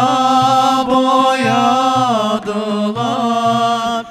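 Men singing a Turkish Islamic hymn (ilahi) lamenting Imam Hussein. They hold a long melismatic note that slides down about two seconds in, then a second held note. Frame drums keep a steady beat underneath.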